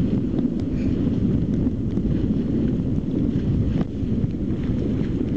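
Strong wind buffeting the microphone, a steady low rumble, over the rush of water along the hulls of a sailing catamaran.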